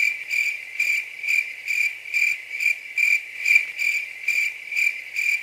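Cricket chirping sound effect: one high chirp repeating evenly about two and a half times a second, starting and stopping abruptly. It is the stock 'crickets' gag for an awkward, blank silence.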